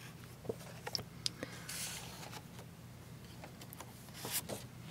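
Faint paper rustling, scraping and light taps of a greeting card being slid back into a card rack slot and another drawn out, over a low steady hum.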